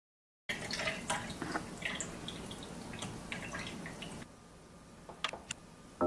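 Liquid dripping and splashing with small clinks for about four seconds, then a few faint clicks.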